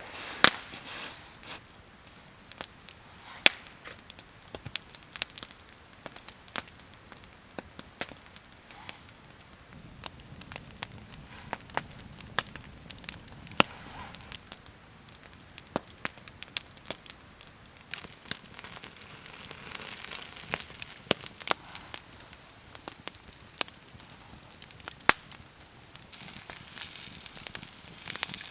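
Wood campfire crackling, with irregular sharp pops and snaps over a low hiss.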